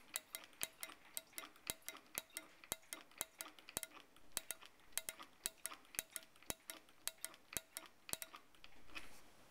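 Bosch fuel injector from a 1983 Porsche 944 clicking as a pulser rig fires it, about four sharp clicks a second, while cleaning solvent is flushed through it. The clicking stops near the end.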